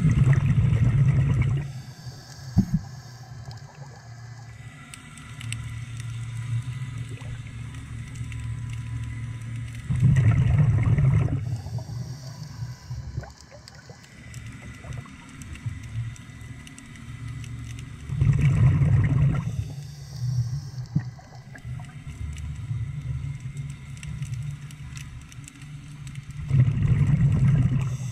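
Scuba regulator breathing underwater: exhaled bubbles rush out in four loud bursts about eight seconds apart, with a quieter steady sound of inhaling through the regulator between them.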